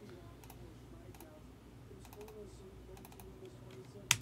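Computer keyboard typing in short clusters of keystrokes about once a second, with one sharper, louder click about four seconds in.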